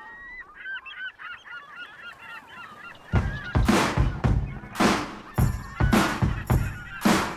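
Several birds calling in short, bending cries; about three seconds in a steady drum beat starts, the opening of a music track.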